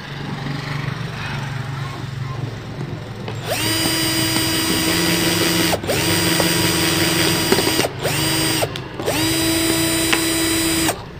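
Makita HP331D cordless drill drilling holes in a plastic spray bottle: after a few seconds of low rumble, the motor runs in four bursts, each winding up quickly to a steady whine, the last cutting off suddenly near the end.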